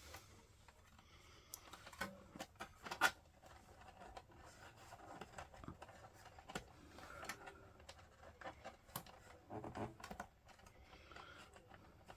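Faint, irregular clicks, taps and rustling of power-supply cables and connectors being handled and routed inside a slimline desktop PC case, with the sharpest clicks about two and three seconds in.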